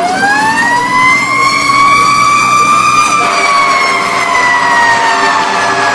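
Fire apparatus's mechanical siren (Federal Q) on a response: it winds up quickly to a high wail in the first second or so, holds, then a little past halfway begins a slow, falling coast-down.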